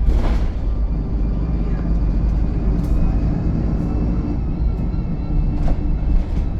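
VDL SB200 Wright Pulsar 2 single-deck bus running, a steady low engine drone with a thin whine over it, and a couple of short knocks or rattles, one just after the start and one near the end.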